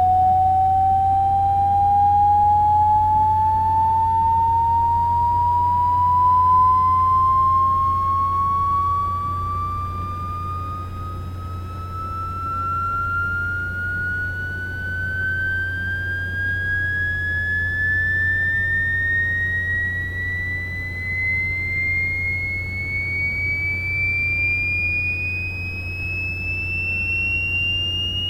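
Hearing-test sine tone sweeping slowly and steadily upward in pitch, from a mid whistle to a high one, over a faint steady low hum.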